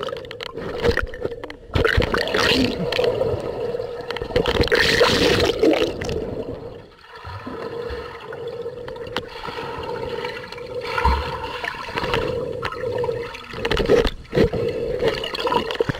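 Water sloshing and gurgling against a waterproof camera held underwater in a swimming pool, muffled, in irregular surges, with a steady hum underneath.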